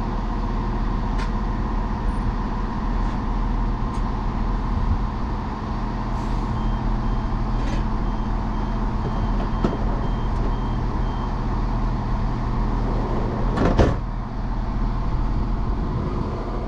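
East Midlands Railway diesel multiple unit idling at the platform, a steady engine hum. A run of short high beeps, about two a second, sounds in the middle, and a single sharp knock comes near the end.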